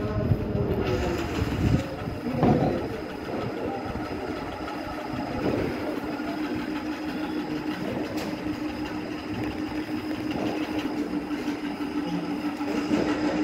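Steady mechanical rumble with a constant hum that settles in about halfway through, and a few knocks in the first couple of seconds.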